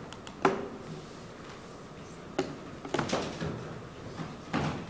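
A few short knocks and clunks, the loudest about half a second in and the rest spread through the second half.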